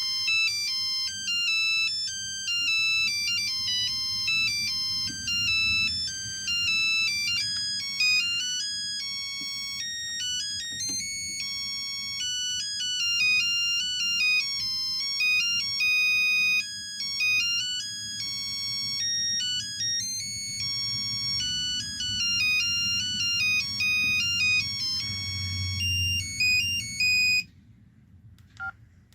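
LG V111 mobile phone playing a ringtone through its small speaker: a quick, high-pitched melody of beeping notes. It stops about two seconds before the end, and one short blip follows.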